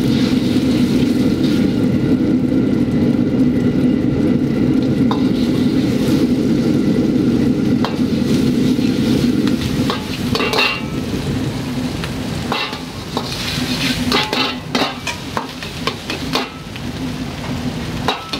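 Food sizzling and being stirred in a wok over a steady low rush of noise. From about halfway through, the metal ladle clacks and scrapes against the wok again and again.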